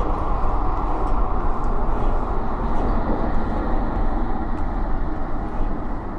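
A steady, dense low rumble with no clear pitch, with a few faint ticks scattered over it.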